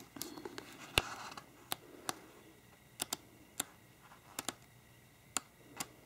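Pages of a patterned-paper pad being flipped one at a time. Each page gives a short, crisp flick, about ten of them at uneven intervals, with a soft papery rustle about a second in.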